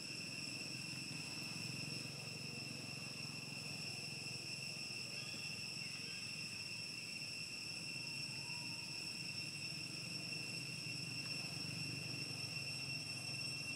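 Insects droning steadily outdoors, holding several high-pitched tones without a break, over a low background hum.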